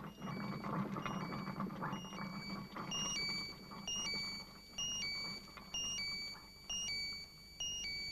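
Coffee maker gurgling as it brews for the first couple of seconds, then an electronic alarm beeping in a repeating pattern of alternating high tones, pulsing about once a second.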